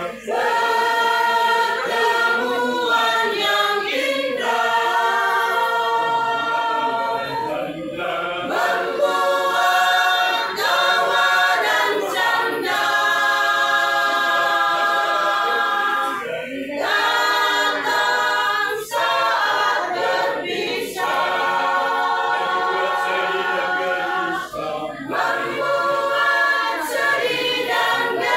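A mixed men's and women's masamper choir singing unaccompanied in several-part harmony, in held phrases a few seconds long with short breaks for breath between them.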